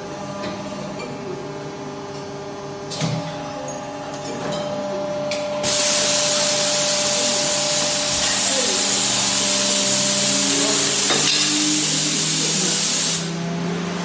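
Aluminium die casting machine spraying release agent onto the open die: a loud hiss that starts about five and a half seconds in and cuts off abruptly about seven and a half seconds later, over the steady hum of the running machine. A single clink about three seconds in.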